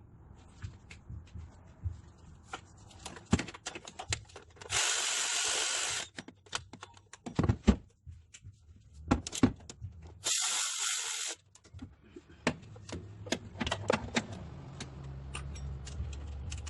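A power tool runs bolts in two bursts of about a second each, one near the middle and one about two-thirds of the way through, amid scattered clinks and knocks of tools on metal parts.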